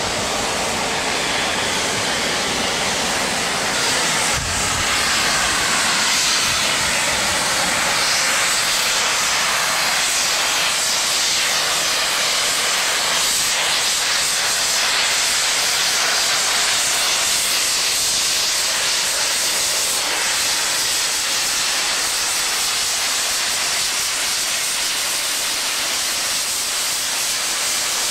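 A Class 37 diesel locomotive's engine running for the first few seconds. Then, from about four seconds in, a loud, steady hiss of steam from the standing Bulleid West Country class Pacific steam locomotive Taw Valley.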